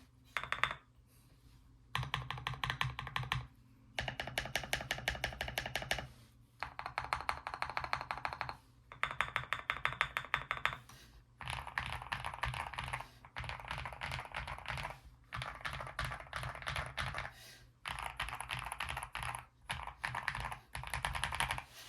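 Fast typing on an Akko 5075B Plus mechanical keyboard with lubed Akko Wine Red linear switches and a four-layer tape mod, which gives it a louder, poppy sound. The keystrokes come in rapid runs of a second or more separated by short pauses, and turn nearly continuous for the last ten seconds.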